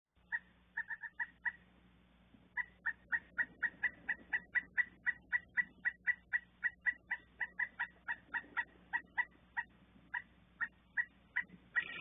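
Pileated woodpecker calling: a long series of short, evenly spaced 'kuk' notes, about five a second, that slows and turns irregular near the end.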